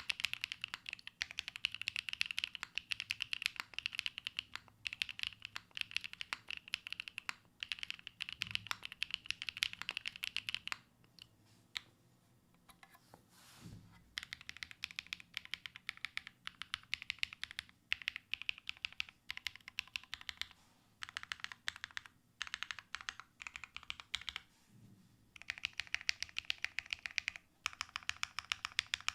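Typing on a Matrix Lab Magic3 80% mechanical keyboard with Sarokeys Strawberry Wine switches, GMK Hazakura keycaps and a full aluminium plate, built with no foam. Rapid runs of keystrokes break off for a short lull about halfway through, which ends with a soft low thump, and pause briefly again later on.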